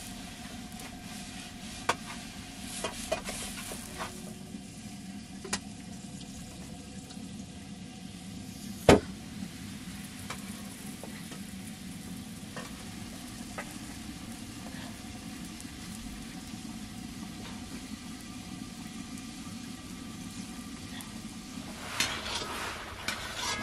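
Cooking over an open wood fire: a steady low sizzling hiss from the hot griddle and fire, with scattered crackles and pops from the burning wood. One much louder sharp crack comes about nine seconds in, and a quick run of crackles comes near the end.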